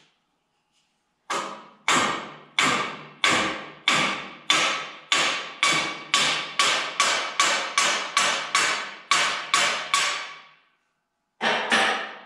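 Hammer blows on the stuck steering shaft of a 1943 John Deere Model B, driving it out of the front pedestal: a steady run of about eighteen blows, roughly two a second and quickening slightly, each ringing briefly, then a pause and two more near the end.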